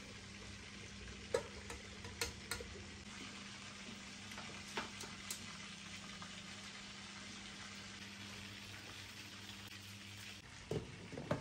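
Boiled rice being strained in a stainless-steel mesh colander and tipped back into its pot: a faint hiss of draining water with a few light taps and knocks of the colander. A steady low hum runs underneath and stops about a second before the end.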